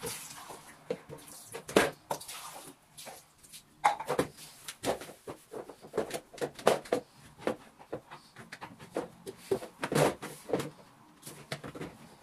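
Irregular clicks, knocks and clacks of household objects being handled and set down, a dozen or more sharp strokes with short gaps between them.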